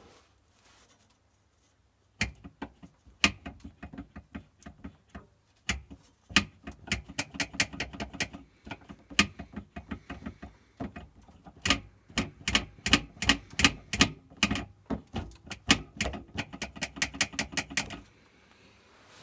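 BMW E38's handbrake cables rattling and knocking against their holder in quick, irregular clatters, starting about two seconds in and stopping near the end. The holder is missing two rubber grommets, so the slack cables strike it and the knocking carries into the body.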